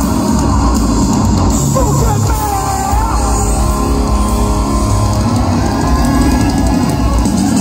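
Live rock band playing loudly, heard from within the crowd: electric guitars and drum kit, with a male lead singer's voice gliding in pitch around the middle.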